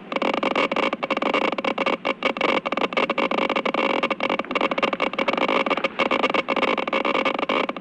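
Geiger counter clicking rapidly and irregularly in a dense crackle, a high count rate.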